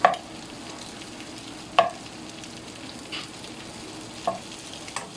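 Chicken gizzards, garlic and peppercorns sizzling steadily in oil in a frying pan, with a few sharp knocks of the stirring utensil against the pan.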